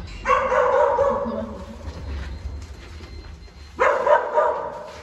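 Dalmatian giving two long, drawn-out whining calls, one at the start and a shorter one about four seconds in, as dogs do when excitedly greeting people coming in.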